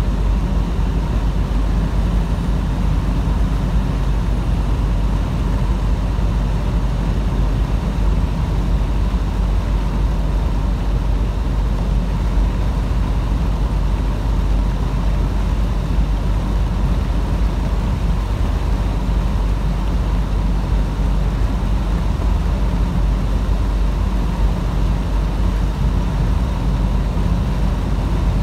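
Steady low rumble of a semi truck driving down the highway, engine drone and road noise heard from inside the cab.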